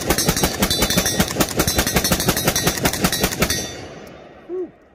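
Zastava ZPAP M70 7.62×39 AK-pattern rifle fired rapidly in semi-auto, several shots a second, with the string ending about three and a half seconds in. The last round locks the bolt open on the empty magazine, and the report fades out after it.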